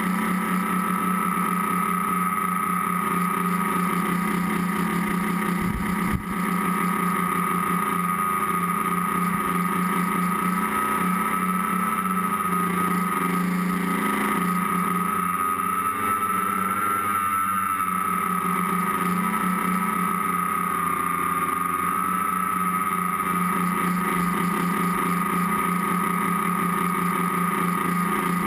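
Tricopter's three electric motors and propellers whining steadily in flight, heard close up from the camera mounted on it, the pitch wavering slightly as the throttle changes.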